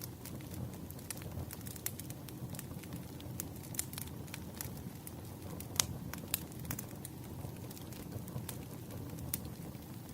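Wood campfire crackling: a steady low rumble of burning with irregular sharp pops and snaps, the loudest pop a little before six seconds in.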